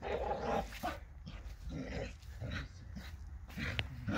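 Two dogs playing roughly at close range: short, irregular dog noises.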